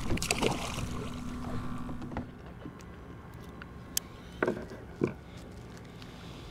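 Hooked ladyfish splashing at the surface beside a kayak, then quieter water against the hull with three sharp clicks about four to five seconds in.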